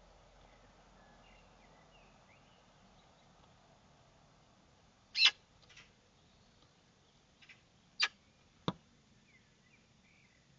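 Faint chirps from small birds over a low, steady background hiss, with about five sharp clicks in the second half, two of them loud.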